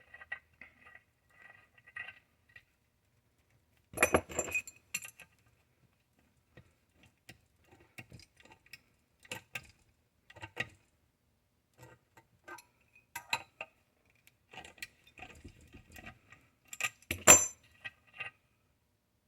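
Scattered metallic clinks and clicks from hand tools working in the threaded plug holes of an engine intake manifold, chasing out crusty threads. There are two louder knocks, about 4 s in and near the end.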